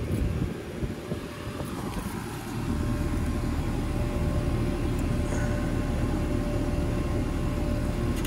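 Outdoor central air conditioner condensing unit running: a steady fan hum with thin steady tones above it, growing louder about two and a half seconds in.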